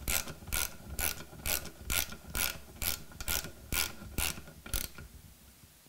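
Ratchet wrench clicking as its handle is swung back and forth, about four clicks a second, tightening the threaded cap on an engine crankcase's oil pressure control valve; the clicking stops about five seconds in as the cap is snugged down.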